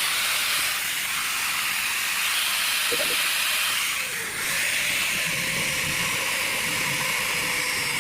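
Bosch GWS 11-125 angle grinder running with a steady hissing whir, dipping briefly about four seconds in.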